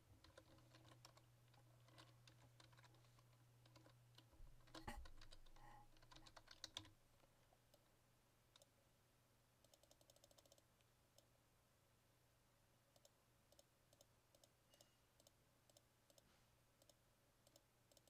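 Faint computer keyboard typing, scattered keystrokes with a quick run of them about ten seconds in, as text is typed into an image editor.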